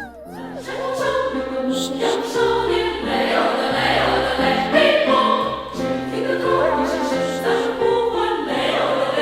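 Music: a choir singing over instrumental backing with a stepping bass line.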